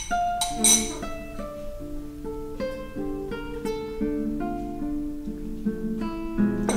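Background music of a plucked acoustic guitar playing a melody of single ringing notes. A short noisy sound about half a second in is the loudest moment.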